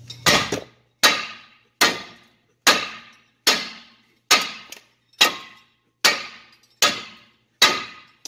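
A hammer striking the steering knuckle of a Chevrolet K3500 pickup about ten times at an even pace, each blow ringing briefly, to shock a tapered joint stud loose from the knuckle.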